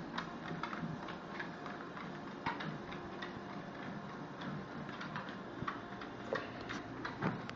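A cocker spaniel's claws ticking on a moving treadmill belt as it walks, a few irregular clicks a second, over the steady run of the treadmill.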